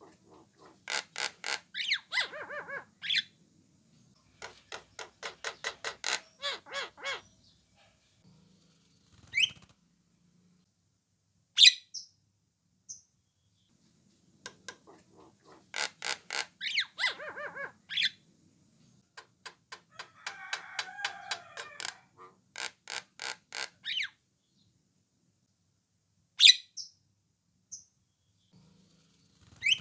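Javan myna (jalak kebo) calling: several runs of rapid, harsh chattering notes, several a second, each run lasting a few seconds. A few sharp whistled notes come between the runs.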